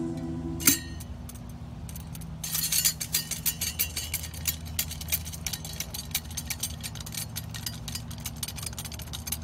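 Metal golf-green hole cutter being worked down into the turf: a quick run of irregular gritty clicks and scrapes from about two seconds in, after one sharp click near the start. A steady low hum runs underneath.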